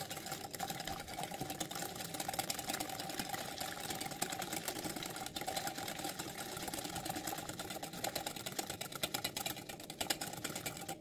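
Whisk beating rapidly against a glass bowl, a fast, steady clatter, while hot milk is poured in slowly to temper the egg and sugar mixture for charlotte buttercream. A faint steady tone runs underneath.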